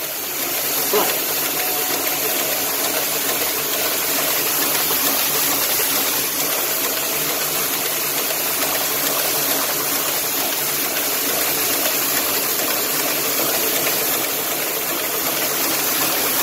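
Printing press with a Stenz Ecofeed envelope feeder running continuously on C6 window envelopes, a steady mechanical whir and hiss. Its speed is being raised from about 6,700 to 8,100 envelopes an hour.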